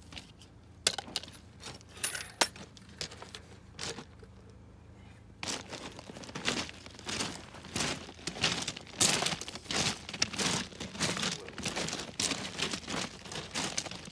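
Loose rounded drain rock crunching and clicking: a few scattered clicks at first, then a dense, irregular run of crunches from about five seconds in.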